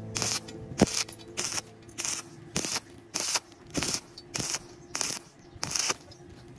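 Stick-welding arc on a thin square steel pipe, crackling in short, evenly spaced bursts, about two a second, with quiet gaps between: the arc is struck and broken again and again, the intermittent technique used to keep thin pipe from burning through. The bursts stop near the end.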